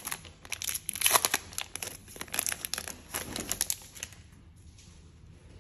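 Baseball card pack wrapper crinkling and tearing as it is ripped open and the stack of cards is slid out: a run of short, crackly rustles that dies away about four seconds in.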